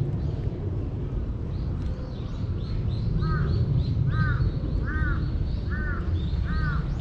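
A crow cawing five times in an even series, about one caw a second, starting around the middle, over small birds chirping.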